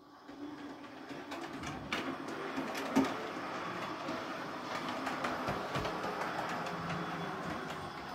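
Brass 7mm-scale D11 4-4-0 model locomotive running along the track, its motor and wheels making a steady running noise on the rails that grows louder over the first couple of seconds as it approaches. Scattered clicks along the way, the loudest about three seconds in.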